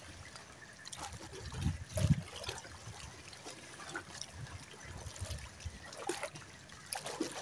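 Shallow seawater lapping and trickling, with a few low thumps and brief soft clicks.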